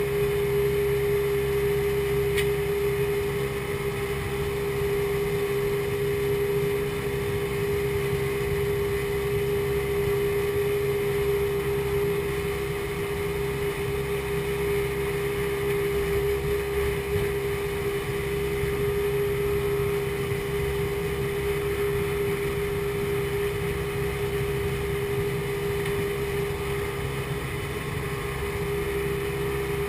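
Mercury 175 hp two-stroke XR2 engine driving a Mercury Sport Jet pump, running steadily at speed with the boat on plane, a steady pitched drone over a low rumble.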